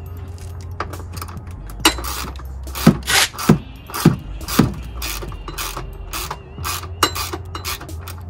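Ratchet wrench clicking in short strokes, with the sharpest clicks about half a second apart in the middle, as a fastener is worked loose up inside a car's wheel well.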